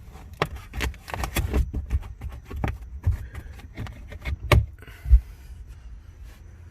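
A quick run of small clicks, taps and rattles from speaker wire and trunk trim being handled, busiest in the first four seconds, ending with a sharper click and a dull knock about five seconds in.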